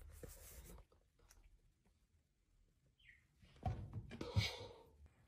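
Cats scuffling at a wooden drawer: a quiet stretch with one brief high chirp, then scratching and a couple of thumps about four seconds in.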